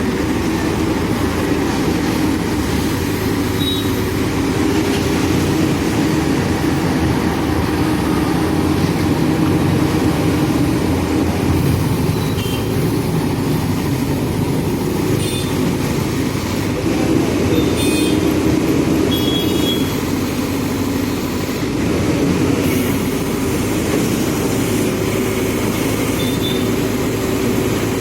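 Backhoe loader's diesel engine running steadily, with a few short high chirps over it.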